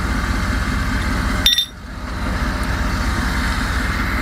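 A vehicle engine idling steadily, with a single sharp metal clink about a second and a half in, after which the sound drops away briefly and comes back.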